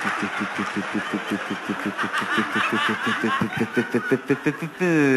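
A man imitating a small boat's outboard motor with his voice: a low, even putt-putt of about six pulses a second, with audience laughter over it. Near the end it turns into a louder falling note.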